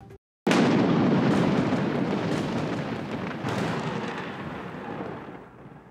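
Thunder sound effect: a sudden clap about half a second in, then a long rumble that slowly fades.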